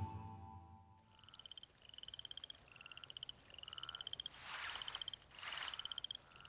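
Night-time animal chorus: repeated short, rapidly pulsed high trills, each slightly rising, about one every three-quarters of a second, starting once the music fades in the first second. Two brief hissing rushes come around the middle.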